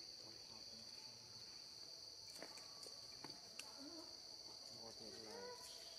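Faint, steady high-pitched insect drone, with a few faint short pitched calls about four and five seconds in.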